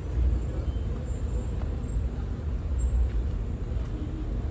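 Low, uneven rumble of outdoor background noise, with no speech.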